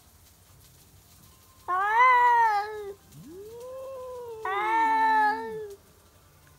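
Two rival cats yowling at each other in a territorial standoff. A loud drawn-out yowl comes about two seconds in, rising then falling in pitch. A lower moan that swoops up and back down follows, and a second loud yowl overlaps it near the end, the two voices sounding together for a moment.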